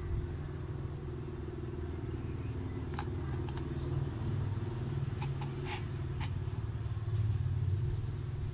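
A low, steady rumble with faint steady tones, a little louder near the end, and a few light clicks.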